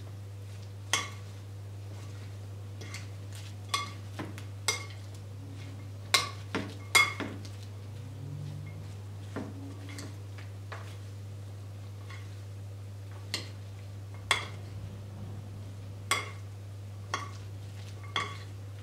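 A spoon clinking irregularly against a glass mixing bowl as a chopped salad is stirred with mayonnaise: about fifteen sharp, briefly ringing clinks at uneven intervals. A steady low hum runs underneath.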